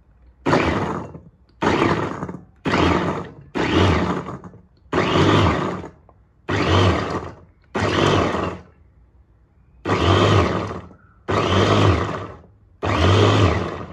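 Electric meat and vegetable chopper pulsed about ten times in short bursts of under a second each, its motor spinning steel blades through pieces of hard carrot in a glass bowl.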